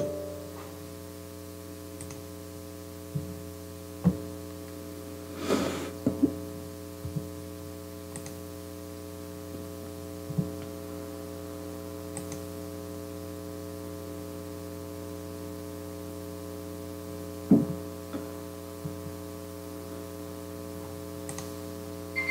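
Steady electrical mains hum made of several held tones, with a few short soft clicks and knocks scattered through it.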